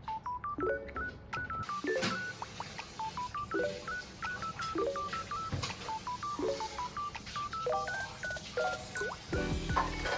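Background music: a light, bouncy tune of short plinking notes in a quick steady rhythm.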